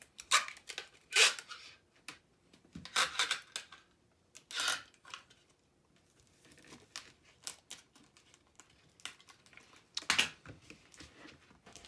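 Clear packing tape being pulled off the roll and torn, in about five short noisy bursts, with cardboard being handled and pressed between them.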